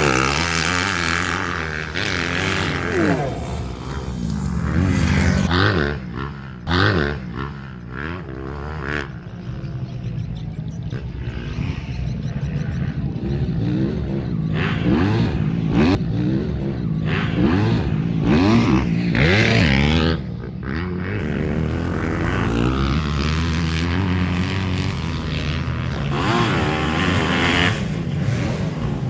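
Several 250 cc grasstrack racing motorcycles running on the track, their engines repeatedly revving up and dropping back as bikes pass one after another.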